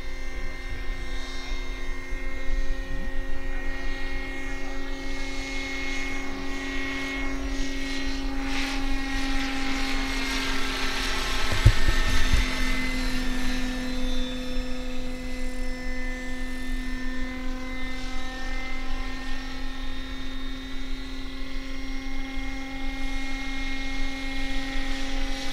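Electric-powered 1:7 scale RC Bell 230 helicopter in flight with its 1800 mm main rotor: a steady whining tone with rotor whir, getting louder toward the middle as it passes, then easing off.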